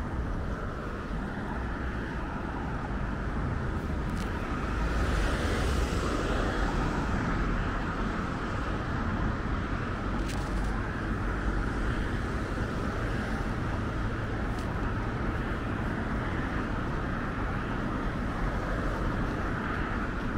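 Steady traffic noise from a multi-lane city road, with one vehicle passing more loudly about five seconds in.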